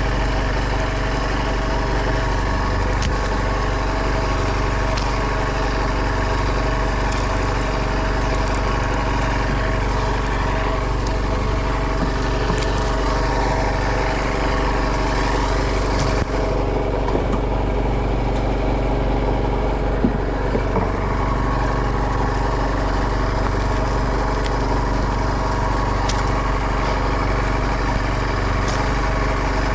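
A fishing boat's engine running steadily at an even pitch, with a couple of faint clicks.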